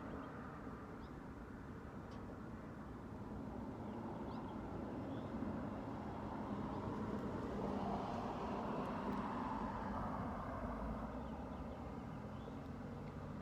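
Wind blowing over the microphone: a low rumbling rush that swells and eases with the gusts, loudest in the middle.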